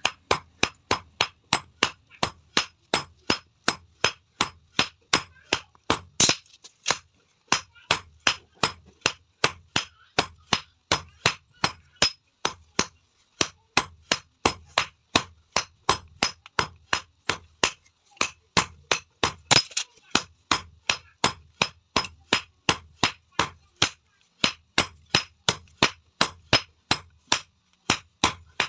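Hand hammer striking a red-hot steel bar on an anvil, forging it flat: sharp metallic blows in a steady rhythm of about three a second, with one brief pause about seven seconds in.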